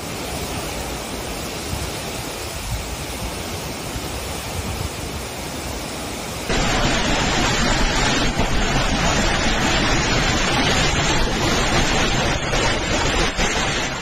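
A steady rushing noise over flood footage; about six and a half seconds in it cuts to louder hurricane-force wind and driving rain, a constant rush buffeting the microphone.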